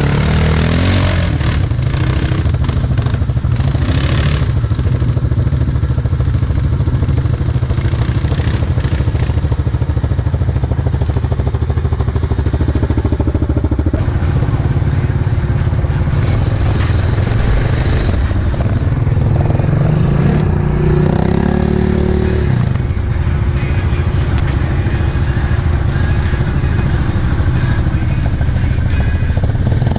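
Off-road ATV engine running steadily, revving up in pitch about two-thirds of the way through, with a few short clunks early on.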